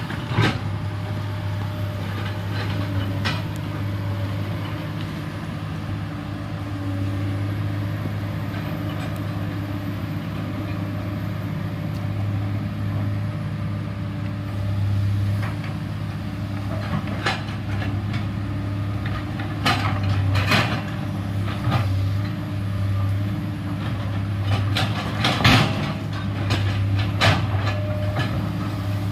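Komatsu PC210LC hydraulic excavator running steadily with a low diesel hum, with scattered knocks and scrapes as the bucket cuts into the hillside; the loudest knock comes a few seconds before the end.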